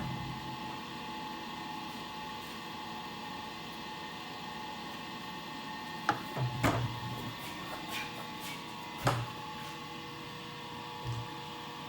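Steady machine hum in a workshop, with a few sharp clicks and short knocks about halfway through and once more near the end, as parts on the grinder are handled.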